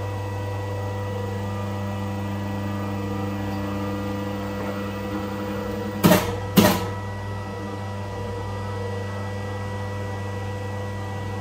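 Shock-rebuild press machine running with a steady electric hum. About six seconds in come two sharp knocks, half a second apart.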